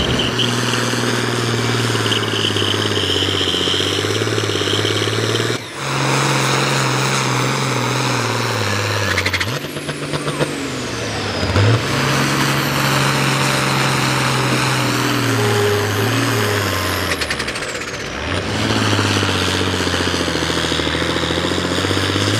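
Farm pulling tractors' diesel engines at full throttle under load as they drag the weight-transfer sled, first a red International, then a John Deere near the end. A loud, steady drone with a high whine above it, broken by a few sudden dips and changes in pitch.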